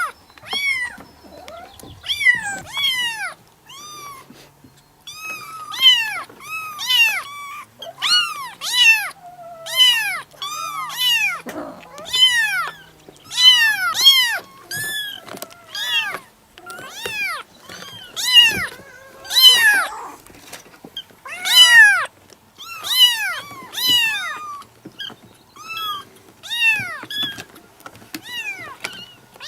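Kitten meowing over and over in short, high-pitched calls that rise and fall, about one or two a second.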